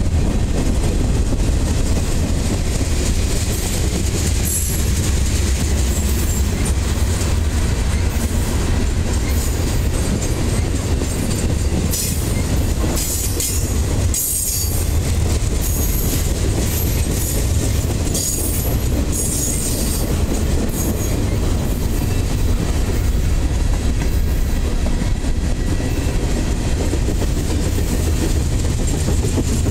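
Freight train of boxcars, covered hoppers and gondolas rolling past at close range: a steady rumble of steel wheels on the rails. Short high wheel squeals come mostly in the middle stretch.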